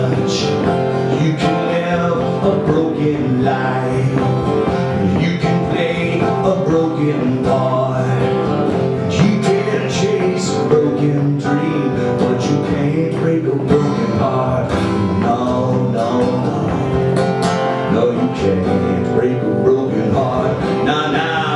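Live song in an instrumental passage, led by acoustic guitar.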